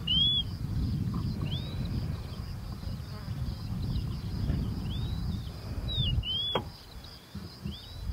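Savanna ambience: a steady high insect buzz, with a bird's short arching whistled calls repeated every second or two, the loudest doubled calls about six seconds in, over a low rumble.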